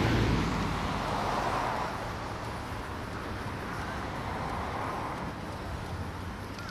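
Steady outdoor rushing noise with no distinct events, easing off over the first two seconds and then holding level.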